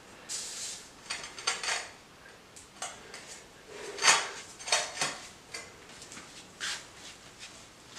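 Ceramic floor tiles being worked by a gloved hand as they are set: a string of short scrapes and ceramic clinks, the loudest about four seconds in.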